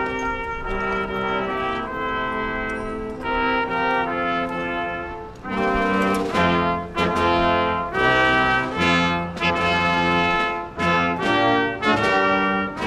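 Background music led by brass instruments, playing a series of held notes; it grows fuller and louder, with deep bass notes added, about five and a half seconds in.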